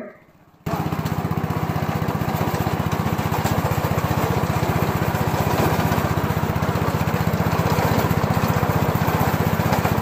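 Engine of a remote-control tracked lawn mower running steadily as the machine crawls along, with a fast, even pulsing beat. It starts abruptly about half a second in.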